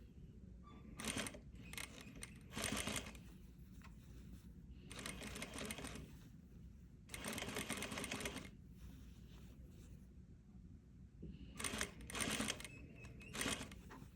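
Domestic sewing machine stitching in several short runs with pauses between, sewing an ease (crimping) stitch along a sleeve cap.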